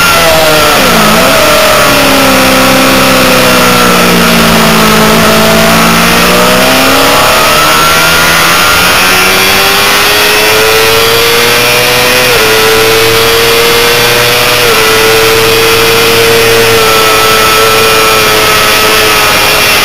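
Honda CBR600RR's inline-four engine at high revs, with a steady rush of wind noise. The revs drop sharply about a second in and stay lower for several seconds, then climb again from about seven seconds, with a gear change near fifteen seconds before running on at high revs.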